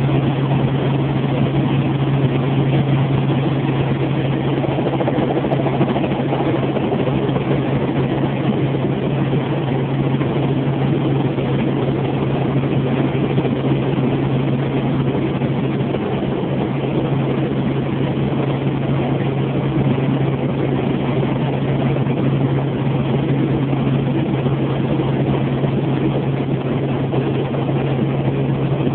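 Helicopter engine and rotor noise heard from inside the cabin in flight: a steady low hum under a constant loud rushing drone, with no change in pitch.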